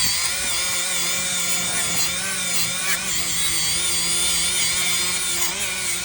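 Handheld power tool spinning a gasket remover disc against a Volvo B230 engine's gasket sealing surface, stripping off old gasket material. It runs as a steady whine whose pitch wavers slightly as the disc is pressed on.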